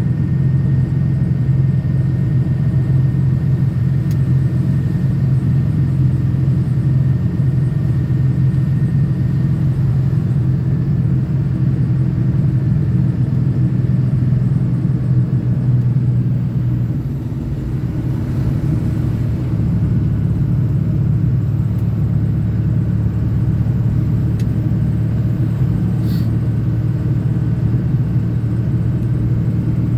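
Diesel pickup truck driving: a steady low rumble of engine and road noise, easing briefly about seventeen seconds in.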